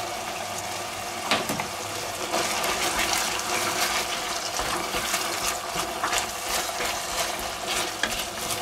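Ground meat with tomato and paprika paste sizzling in a cocotte, with a knock about a second in. From about two seconds in, a wooden spoon stirs it, adding scraping and crackling.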